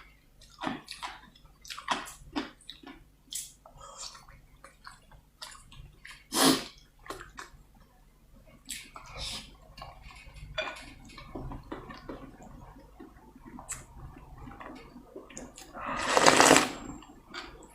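Close-miked eating sounds: wet chewing and lip smacking, broken by a loud slurp of noodle soup about six seconds in and a longer, louder slurp near the end.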